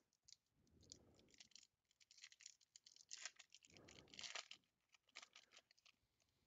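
Foil wrapper of a Bowman baseball-card pack crinkling and tearing as hands pull it open, faint crackles in short irregular bursts.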